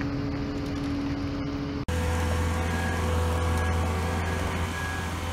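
A steady mechanical hum. About two seconds in it cuts to a boatyard travel lift's engine running with a deep, steady drone.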